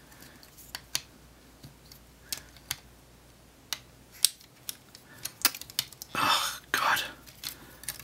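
Plastic parts of a transforming-robot toy figure clicking as they are folded and pressed into place, a scattered series of sharp clicks, then two longer scraping rubs near the end.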